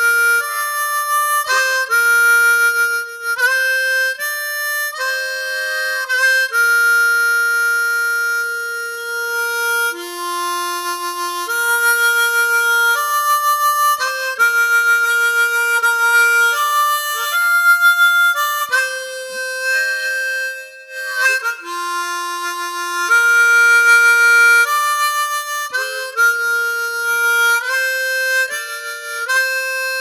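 Instrumental music: a slow melody of held notes and chords, changing pitch every second or so.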